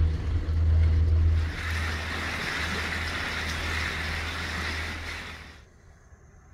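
A boat's motor running steadily with a low hum. About a second and a half in, a rushing hiss joins it. Both cut off abruptly near the end, leaving only a faint background.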